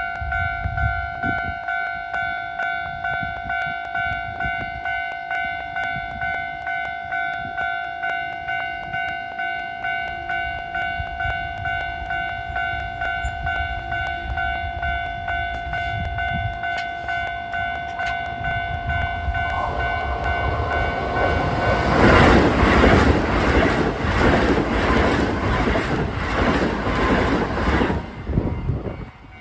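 Level crossing warning bell ringing steadily at about two strikes a second, then a Keisei 3700 series electric train coming through the crossing: its noise builds from about 20 seconds in, passes loudly with wheels clacking over the rail joints, and drops away just before the end.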